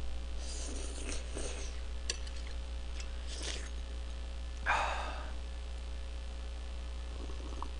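Close-up eating noises from a person slurping and chewing jajang noodles: a few short, noisy slurps, the loudest just before five seconds in. A steady low electrical hum lies under it all.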